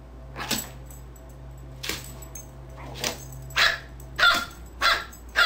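A dog barking in short, sharp barks, about seven of them, coming closer together and louder in the second half.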